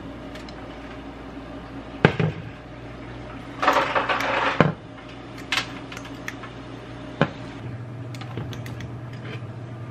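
Metal spring-release cookie scoop working dough onto a stainless-steel baking sheet: a few sharp clicks of the scoop against the metal and a brief scrape about four seconds in, over a steady low hum.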